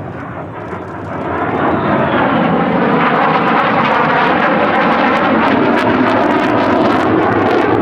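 F-35A Lightning II jet fighter's F135 engine: loud jet noise that swells about a second in as the jet comes closer, then holds loud, with crackling near the end.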